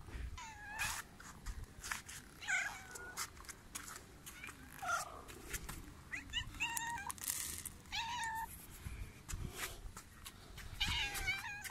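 Cat meowing over and over, about six short meows a second or two apart, while it begs for food held above it.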